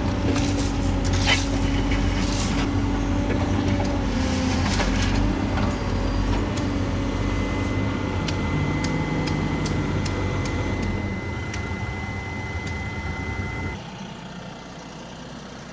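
A construction machine's engine running steadily, with scattered knocks and clicks and a steady high whine for several seconds midway. The engine sound drops sharply to a much lower level near the end.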